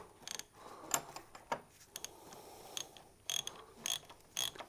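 Ratchet wrench clicking as a freed rear shock-absorber mounting nut on a Yamaha FJR 1300 is spun off: scattered clicks at first, then quicker runs of clicks near the end.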